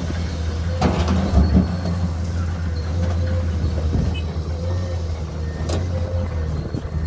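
Heavy diesel earthmoving machinery running steadily at an excavator loading a dump truck, with a faint wavering whine and a few sharp knocks and clanks.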